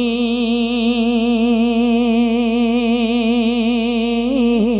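A naat reciter's unaccompanied voice holding one long sung note with a wavering vibrato, the pitch dipping and swinging back up once near the end.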